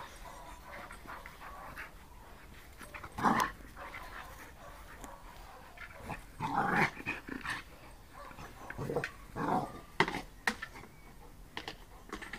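A dog growling in several short bursts while it plays with a ball.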